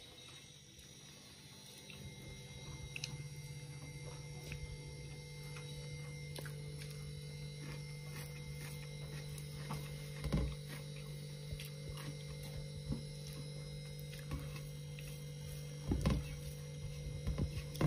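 A steady low hum that fades in over the first couple of seconds, with faint clicks and two soft thumps about ten and sixteen seconds in, from eating rice and curry by hand off a brass plate.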